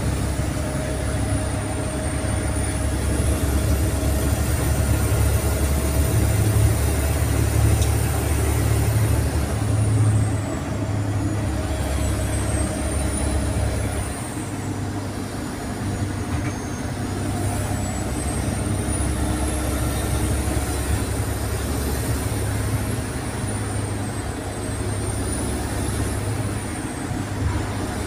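Wright Eclipse SchoolRun school bus heard from the rear of its cabin while under way: a steady low engine and road rumble, easing slightly about ten seconds in, with a faint high whine rising and falling.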